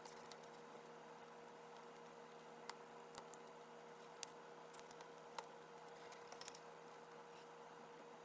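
Near silence with a faint steady hum and a few scattered faint clicks and taps, from an opened iPhone 7's display assembly and housing being handled.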